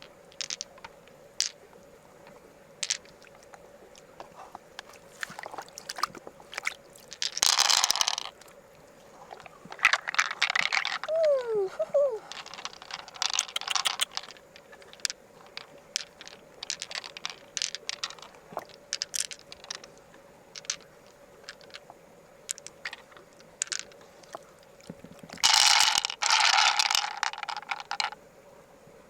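Freshwater mussel shells being handled and worked: scattered sharp clicks and crunches, with longer bursts of scraping about seven, ten and twenty-six seconds in, over a faint steady hum.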